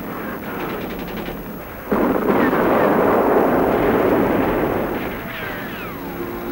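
Battle sound effects of gunfire and artillery: a low rumble, then a sudden loud blast about two seconds in, followed by a few seconds of dense explosion and gunfire noise that fades, with a few falling whistles near the end.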